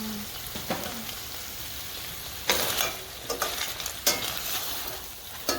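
Food sizzling in a pan while being stirred, with the utensil knocking against the pan several times, most sharply about two and a half and four seconds in.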